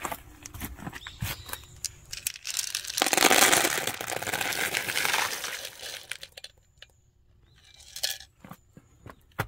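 A bag of dry cat food rustling and kibble being poured into a small metal tray, a dense crackling rattle from about two and a half to six seconds in, with scattered clicks before and a couple of sharp clicks near the end.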